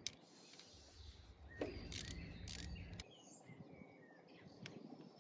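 Quiet outdoor ambience with faint bird chirps, a few sharp clicks, and a low rumble from about one to three seconds in.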